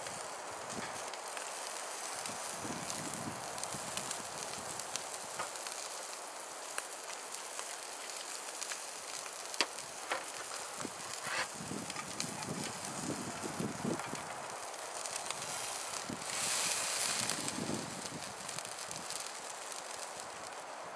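Campfire burning over a steady hiss, with scattered crackles and pops from the wood. A louder rush of noise lasts about a second near the end.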